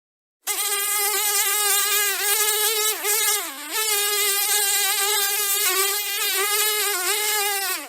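House fly buzzing in flight: a loud, wavering buzz that dips lower in pitch twice around the middle. It starts about half a second in and cuts off abruptly at the end.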